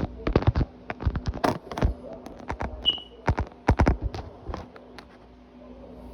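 Handling noise: a quick run of knocks, taps and clicks for about four and a half seconds, with one short ringing chink about three seconds in, then it settles. These are the knocks of the phone being set down and adjusted.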